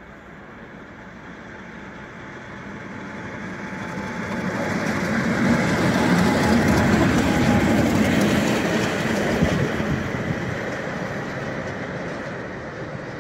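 Class 50 diesel locomotive 50049 'Defiance', running on its own, passes by, its English Electric 16-cylinder engine running. The sound builds steadily to a peak about halfway through as it goes past, then fades as it draws away.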